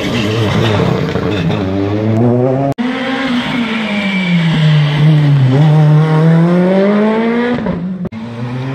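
Rally car engine revving hard. Its pitch rises, then after an abrupt break falls as the car slows for the corner and climbs again as it accelerates away. The sound breaks off sharply a second time near the end.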